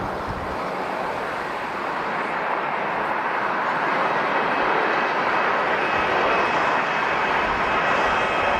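Jet airliner engines: a steady rushing noise that grows louder from about three seconds in, with a faint whine on top.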